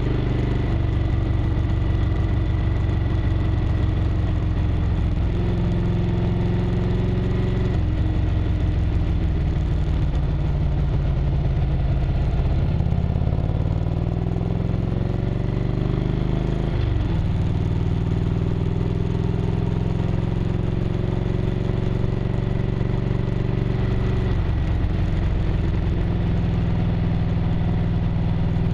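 1998 Harley-Davidson Road Glide's V-twin engine running under way, its pitch stepping and gliding down and back up several times with throttle and gear changes through the curves.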